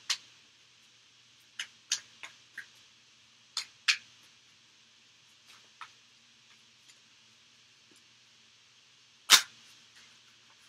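Deck of tarot cards shuffled by hand: scattered short soft slaps and clicks of cards against each other, most of them in the first four seconds, with one much sharper slap about nine seconds in.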